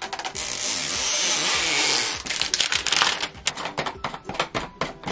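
Plastic wrapping on a toy mystery tube being torn off close to the microphone. A steady ripping hiss lasts nearly two seconds, then gives way to rapid crinkling and crackling of the plastic.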